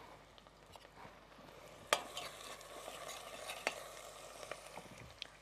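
Onions frying softly in oil in a pot while being stirred, with a sharp tap about two seconds in and another a couple of seconds later.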